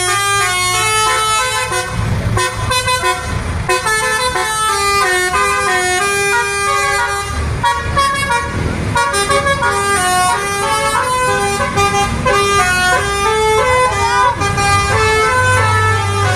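Bus 'telolet' horns, multi-trumpet musical air horns playing quick tunes, a rapid run of short notes stepping up and down in pitch, over a bus engine's low running.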